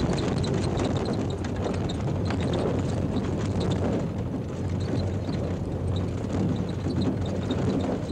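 Triumph Stag prototype driving over Belgian pavé cobbles on a rough-road durability test: a continuous, irregular drumming and knocking of tyres and suspension on the stones, over a steady engine hum.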